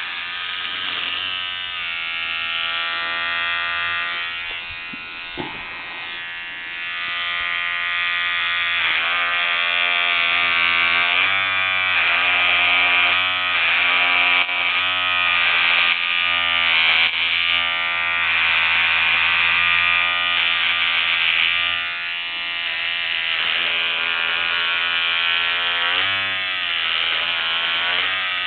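Electric shaver buzzing close up as it cuts through a thick moustache and beard. Its pitch dips and recovers again and again as the motor slows in the hair. There is a brief click about five seconds in.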